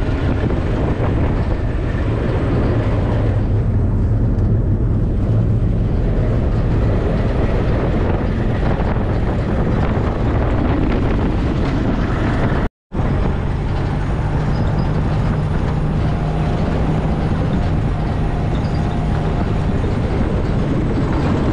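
Off-road vehicle's engine running steadily while driving, heard from inside the open cabin. The sound cuts out for an instant a little past halfway, and the engine note is slightly higher afterwards.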